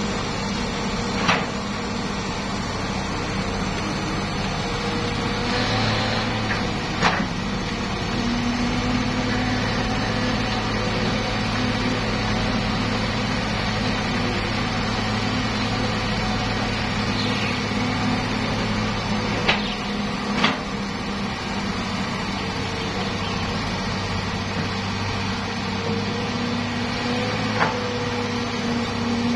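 Hitachi hydraulic excavator's diesel engine running steadily while digging, its note rising and falling slightly, with about five short sharp knocks spread through.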